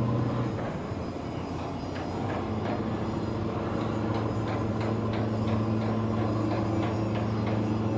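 Shipyard machinery running with a steady low hum, with a scatter of light clicks and knocks over it from about two seconds in.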